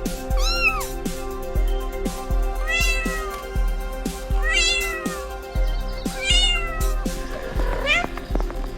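A cat meowing repeatedly, about five high-pitched meows one to two seconds apart, the last one rising in pitch near the end, over background music with a steady beat.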